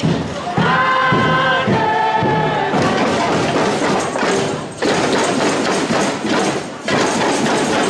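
Carnival parade music: group singing in the first couple of seconds over percussion with repeated thumps, then a dense, busy mix of music and noise.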